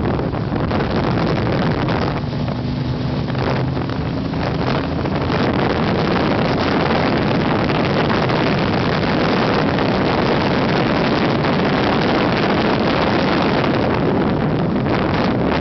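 Wind rushing over the microphone of a moving motorcycle, with its engine running steadily underneath; the noise grows a little louder about five seconds in.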